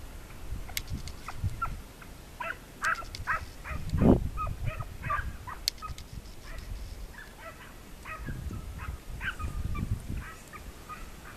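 Hunting hounds baying in chase: many short, overlapping calls in two spells, with wind buffeting the microphone, loudest about four seconds in.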